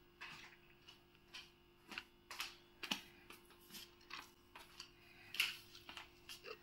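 Light, fairly even ticking clicks, about two a second, over a faint steady hum.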